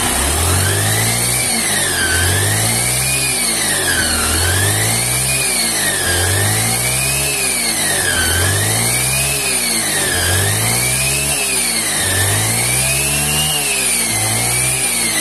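Honda Beat scooter's engine revved over and over with the rear wheel spinning free, about one rev every two seconds, with a whistling whine that rises and falls with each rev. The whine comes from a freshly rebuilt final gearbox, whose bearings and pulley shaft were replaced, and goes with a dragging rear wheel.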